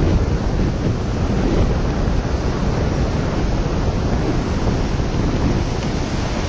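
Wind rushing and buffeting against a hang glider's wing-mounted microphone, a loud steady rumble, as the tandem glider comes in low over the beach to land.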